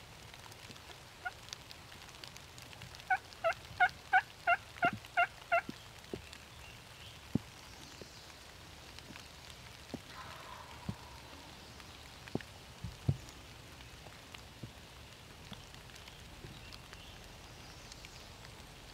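A run of about eight turkey yelps, evenly spaced at roughly three a second, a few seconds in. Scattered light ticks sound over a quiet background.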